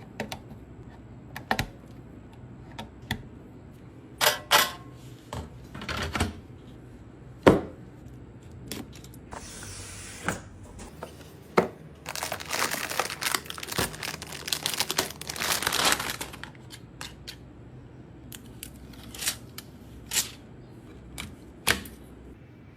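Hands handling computer parts: scattered clicks and knocks of hard plastic and metal pieces, with a few seconds of crinkling plastic packaging about halfway through.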